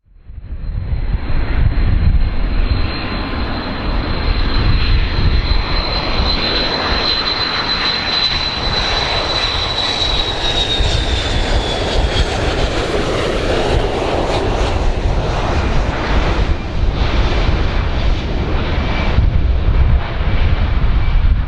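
Airplane engines running loud, with a heavy rumble under a steady high whine that slides down in pitch about ten seconds in.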